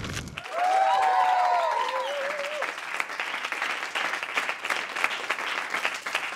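Studio audience applauding steadily, with a few people cheering and whooping in the first couple of seconds.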